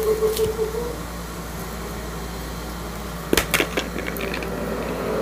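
Steady background hum, like a fan or air conditioner, with a short run of sharp clicks a little past halfway as small hands squeeze and stretch a ball of stiffening homemade slime.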